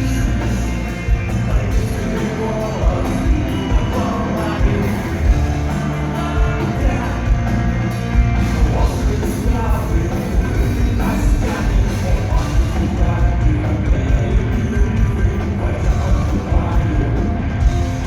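Rock band playing loudly: a steady heavy drum beat and bass under the full band, with singing.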